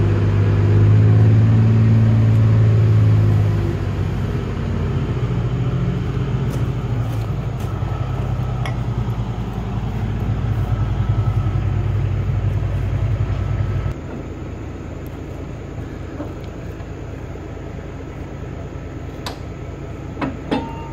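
Engine of the heavy lifting machine running steadily, loudest for the first few seconds, then quieter, and stopping abruptly about 14 seconds in. A few sharp knocks near the end.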